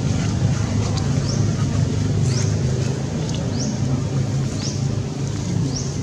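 Outdoor ambience: a steady low rumble, with a short high rising chirp repeating about once a second.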